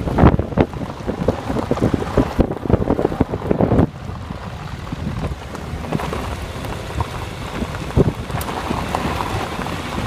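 Wind buffeting the microphone of a phone filming from a moving car. It comes in heavy gusts for the first four seconds, then eases into a steadier rush.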